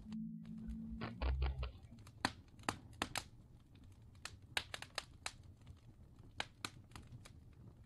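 Faint irregular clicks and crackling over a low hum, with a brief low rumble about a second in.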